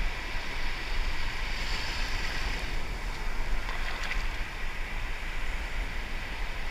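Surf washing and breaking in the shallows, a steady rushing, with wind rumbling on the microphone.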